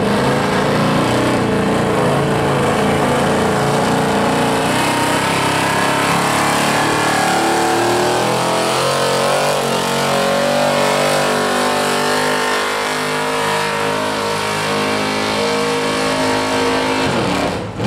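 A 4x4 pickup truck's engine running at high revs under heavy load as it pulls a weight-transfer sled down a dirt track. The note holds high with small shifts in pitch, and drops away near the end.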